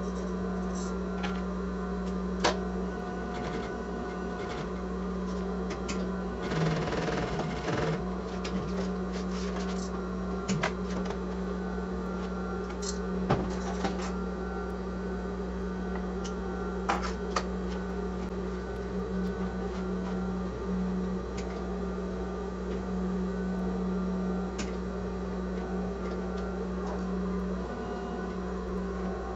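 Sewing machine running steadily as it stitches, with a few sharp clicks here and there.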